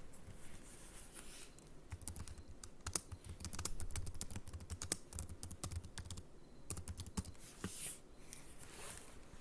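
Computer keyboard being typed on: a run of quick, irregular key clicks as a short command is entered, starting about two seconds in and stopping near the end.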